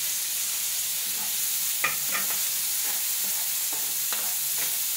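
Onion, garlic and tomato sizzling steadily in hot oil in an aluminium wok, with a metal ladle stirring and scraping, giving a few short clinks against the pan.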